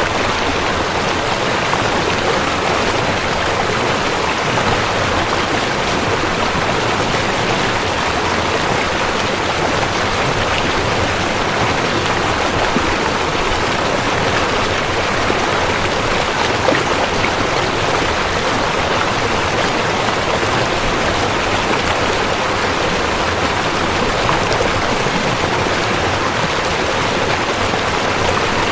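River water flowing with a steady, unbroken rushing noise.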